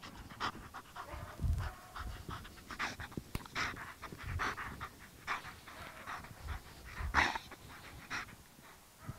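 A German Shepherd panting in quick, uneven breaths, about two a second: a dog worked up and excited during heelwork.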